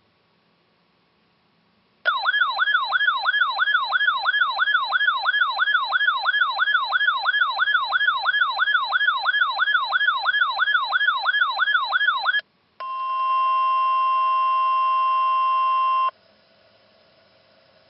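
Emergency alert broadcast tones. About two seconds in, a loud electronic siren-like tone starts, warbling fast up and down about two and a half times a second for about ten seconds. After a brief break, a steady alert tone holds for about three seconds and cuts off, leaving a faint hum.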